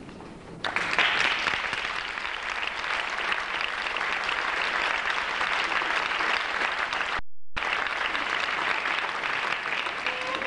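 Audience applauding in a theatre, a dense clatter of clapping that starts suddenly about half a second in and keeps up steadily. There is a brief total dropout in the recording about seven seconds in.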